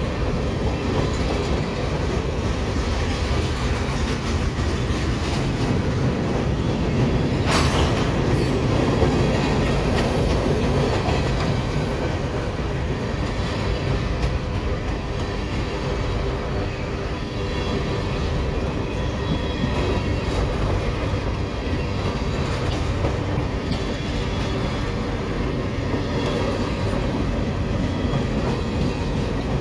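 Freight train cars rolling past close by: a steady rumble of steel wheels on rail with faint clicks from the wheels. A single sharp clank about seven and a half seconds in.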